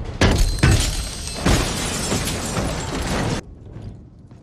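Action-film fight sound effects at a train door: a few heavy blows, then a dense crashing noise that cuts off abruptly about three and a half seconds in.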